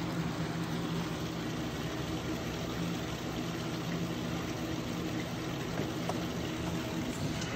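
Steady low mechanical hum with an even hiss, like a running fan or motor.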